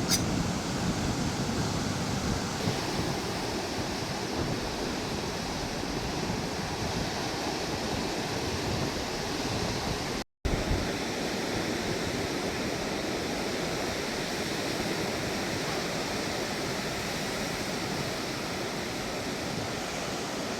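Ocean surf washing steadily onto the shore, an even rushing noise with some wind. It drops out for a split second about halfway through.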